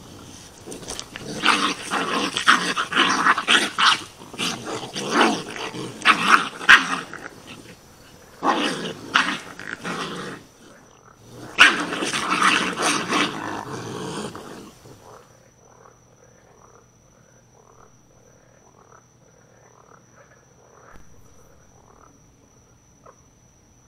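A feral tomcat and a raccoon fighting: harsh screams and growls in three loud bouts with short breaks over about fourteen seconds. Then the fight noise stops and frogs croak in short, evenly spaced calls.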